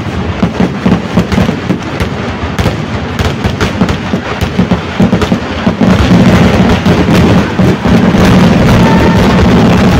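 Fireworks going off in a rapid barrage of sharp bangs, which about six seconds in thickens into a continuous, very loud din of blasts.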